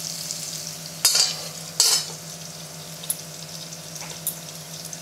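Chicken pieces frying in hot mustard oil in a pan: a steady sizzle, with two brief louder hissing bursts about a second and about two seconds in, and a light click near the end.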